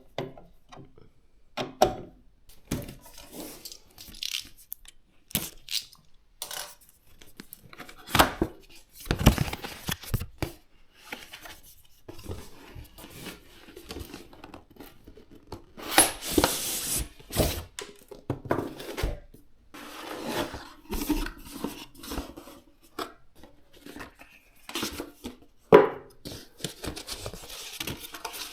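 Computer parts being handled and fitted during a PC build: irregular clicks, taps and knocks of plastic and metal, with a few longer stretches of rustling or tearing, the loudest about a second after the middle.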